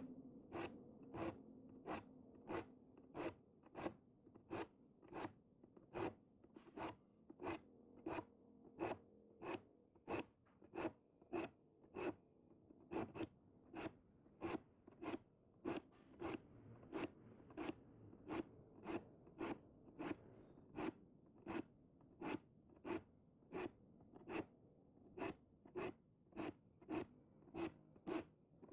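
Diamond file stroking across the teeth of a Japanese ryoba pull saw in a steady, even rhythm of short rasping strokes, about one and a half a second, as the teeth are sharpened.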